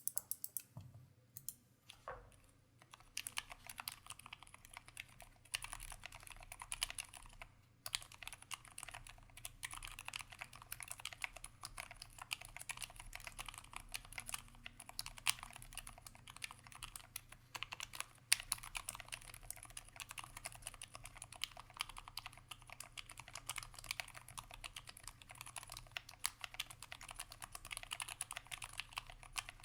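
Typing on an SP-111 split southpaw mechanical keyboard with Roselios silent linear switches lubed with Krytox 105, on a brass plate in a sandwich-mount case: a quiet, muted patter of keystrokes. A few separate key presses come first, then steady fast typing from about two seconds in, with a brief pause near eight seconds.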